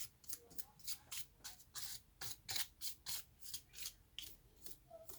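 Quick rubbing or brushing strokes, about four a second, cleaning dust from the inside of a laptop.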